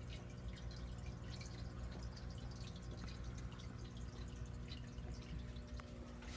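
Aquarium water bubbling and trickling, a steady patter of small drips and pops over a low, steady hum.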